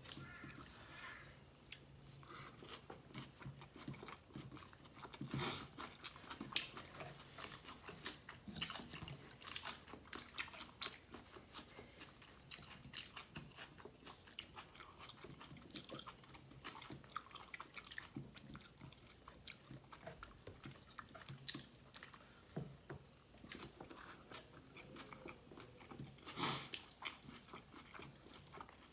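Close-miked eating sounds: wet chewing, lip smacks and bites of beef tehari and korma, a dense run of small clicks, with two louder bites about five seconds in and near the end.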